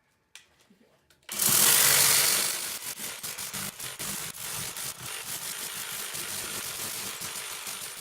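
Reciprocating saw cutting up a wicker basket. It starts suddenly about a second in, is loudest at first, then runs on somewhat quieter with a rapid clatter of clicks as the blade chews through the wicker.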